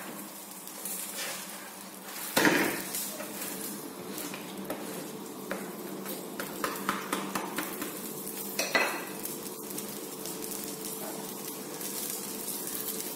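Stuffed kulcha frying in ghee in a pan with a steady sizzle, while a metal spatula scrapes and clinks against the pan, knocking louder twice, about two and a half seconds in and again near nine seconds.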